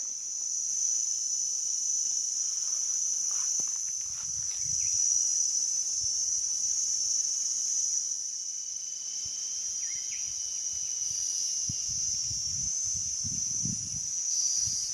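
Steady high-pitched drone of a forest insect chorus, with a fainter, lower thin insect note beneath it for much of the time. Soft low rustles come and go, more of them in the last few seconds.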